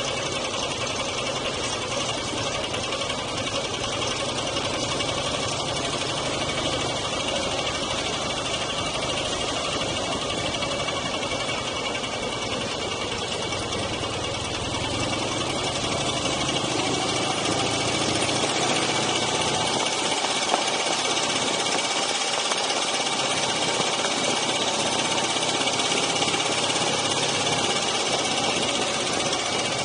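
Dnepr MT9 sidecar motorcycle's flat-twin engine running steadily as the bike is ridden; about halfway through its note climbs and grows a little louder as it picks up speed.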